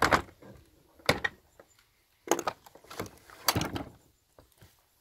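Lowrance trolling motor being pulled up and stowed on its bow mount: a series of hard clunks and knocks, about five spread across a few seconds, the loudest at the start.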